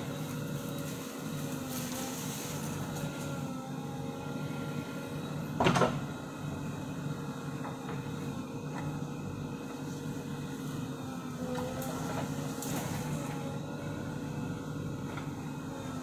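JCB backhoe loader's diesel engine running steadily under load as the backhoe arm digs, its note shifting slightly now and then, with one loud clank about six seconds in.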